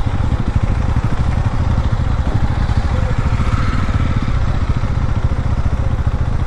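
Vehicle engine running steadily at low revs, a close, even low pulsing rumble.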